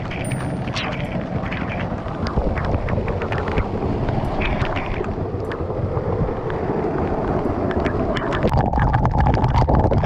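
Hot spring waterfall pouring and splashing right over the camera: a steady rush of falling water with many sharp droplet hits on the housing, growing denser and a little louder about eight and a half seconds in.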